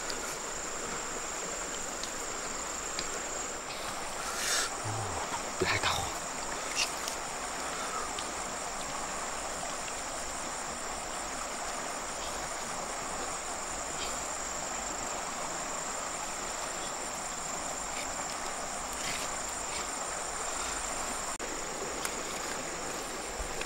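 A steady, high-pitched insect chorus over a soft background hiss, with a few brief knocks a few seconds in.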